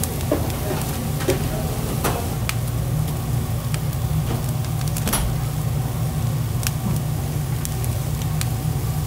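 Raw beef burger patties starting to sizzle on the hot grates of a charbroiler, with scattered sharp pops and crackles over a steady low rumble.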